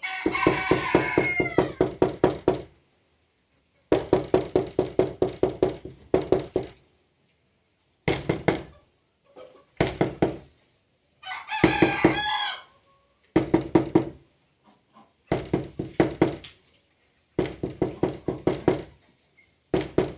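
Knocking on a door in repeated bursts of rapid knocks, separated by short pauses. A rooster crows twice over the knocking, once at the very start and again about halfway through.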